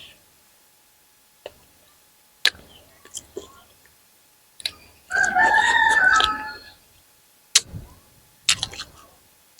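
A rooster crows once, about five seconds in, a single call lasting nearly two seconds. A few short sharp clicks come before and after it.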